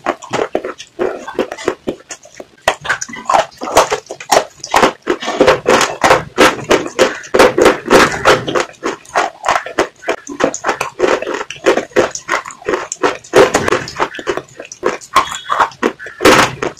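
Close-up wet mouth sounds: lips smacking and a tongue licking the lips, a rapid, irregular run of moist clicks and smacks.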